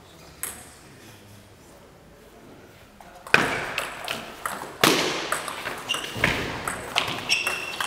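Table tennis rally in doubles play: a quick run of sharp clicks as the ball is struck by the bats and bounces on the table, starting about three seconds in after a quiet stretch with a single tick.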